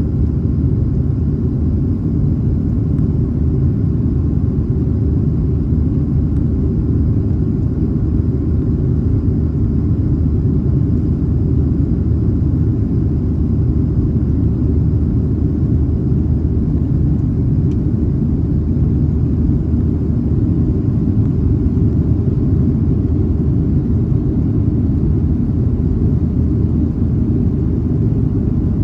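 Steady low cabin rumble of a jet airliner in flight, engine and airflow noise heard from a window seat over the wing.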